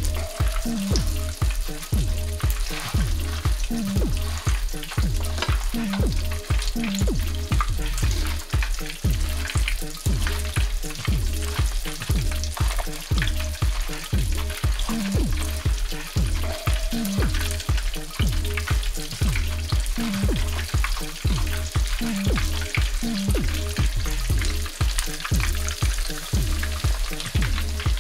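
Breaded pollock fillets frying in hot oil in a pan, a dense steady sizzle and crackle. Under it runs background music with a steady heavy bass beat about twice a second.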